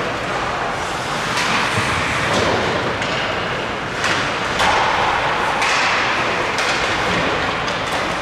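Game noise from a youth sports crowd: a steady hubbub of spectators, with sharp thumps and knocks from the play. It gets louder for a couple of seconds around the middle.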